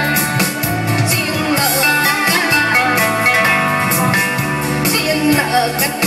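Live amplified music through a loudspeaker: an electronic keyboard playing a melody with a singer's wavering voice over it.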